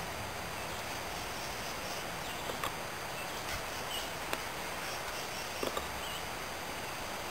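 Steady outdoor background hiss, with a few faint short clicks and small chirps scattered through it.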